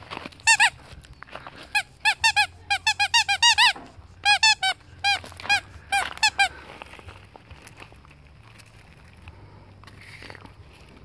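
Rubber squeaky ball toy squeezed over and over: about twenty loud, short high squeaks in quick runs, each rising and falling in pitch, stopping about six seconds in.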